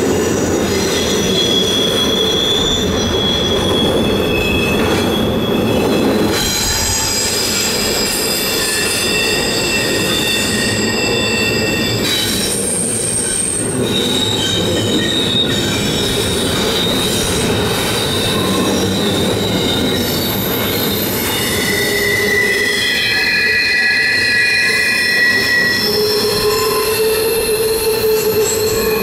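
Freight cars of a long CN freight train rolling past, their wheel flanges squealing on the rail. The squeal is several high, sustained tones that come and go and shift in pitch, over a steady rumble of wheels on track.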